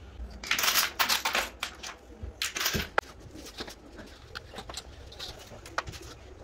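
Pebbles and plastic aquarium-type plants being handled and set out in a bathtub: a few loud rustles in the first three seconds, then scattered light clicks and taps of stones being placed.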